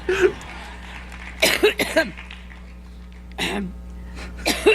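A woman coughing in a drawn-out fit: short coughs in clusters of one to three, with short pauses between them.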